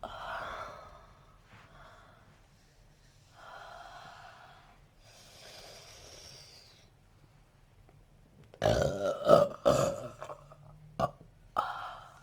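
A person breathing audibly several times, then a loud, drawn-out burp from about nine seconds in, followed by a short, sharp hiccup.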